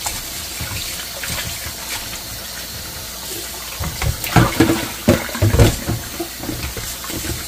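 Kitchen tap running steadily onto raw duck pieces in a plastic colander in a stainless steel sink as hands rinse the meat. Louder splashing and sloshing between about four and six seconds in.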